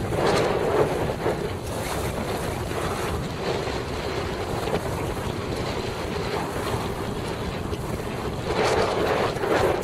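Wind buffeting the microphone over water rushing and splashing along a Laser dinghy's hull, with louder surges about a second in and again near the end.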